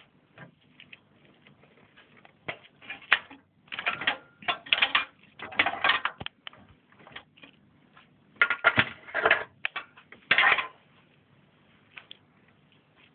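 Irregular clicks, taps and short rattles of hard computer parts being handled, coming in two busy spells and then dying away near the end.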